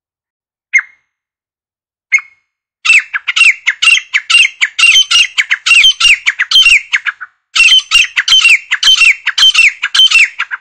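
Grey francolin calling: two single short notes, then a fast run of repeated notes, each falling in pitch, about three a second, broken by a brief pause a little past halfway.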